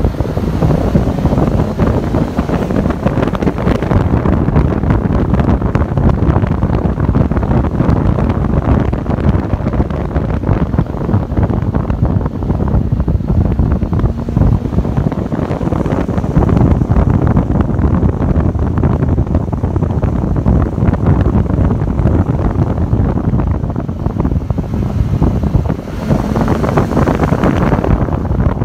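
Wind buffeting the microphone of a phone held in a moving car, with the car's road and engine noise underneath.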